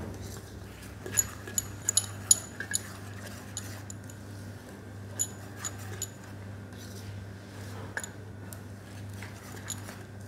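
Wire whisk clicking and scraping against a stainless steel bowl as flour is beaten into a thick chocolate batter: a quick run of sharp clicks in the first three seconds, then scattered single ones. A steady low hum lies underneath.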